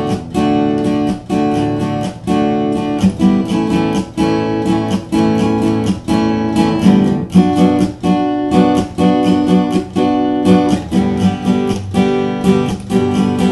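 Instrumental music: chords strummed on a guitar in a steady rhythm, about two or three strums a second, with no singing.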